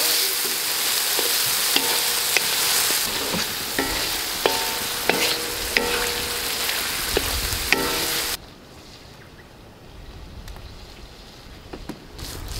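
Chunks of meat sizzling as they fry in a black iron wok, stirred with a wooden spatula whose strokes knock against the pan at a regular pace, each knock with a short metallic ring. The sizzling stops abruptly about eight seconds in, leaving a much quieter background.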